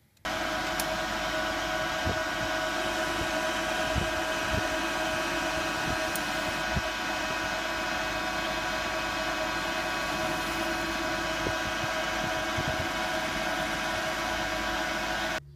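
Metal lathe running steadily with the chuck spinning, turning a small bearing drift to size with an insert cutting tool: a steady machine whine with a few faint ticks. It cuts off abruptly near the end.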